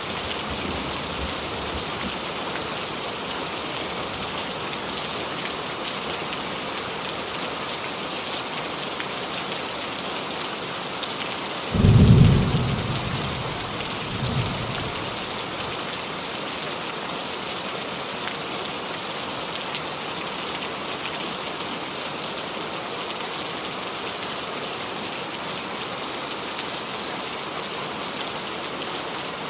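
Steady rain falling on a roof, with a sudden low thunder clap about halfway through that dies away over a second or so, followed by a fainter second rumble.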